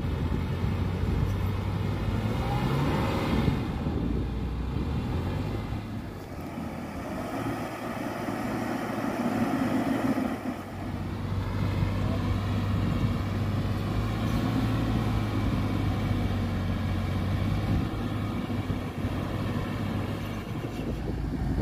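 Land Rover Discovery 4's engine running under load and revving up and down several times as it tries to drive its sand-buried wheels out of soft dune sand.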